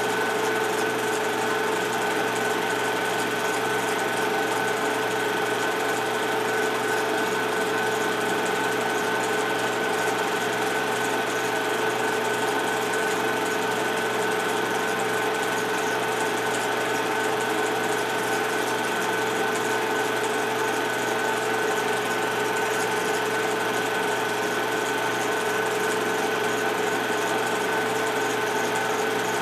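Film projector running: a steady mechanical whir with a constant high hum, unchanging throughout.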